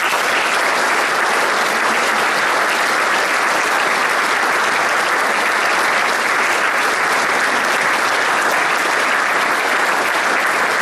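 An audience applauding loudly and steadily, a dense wash of many hands clapping.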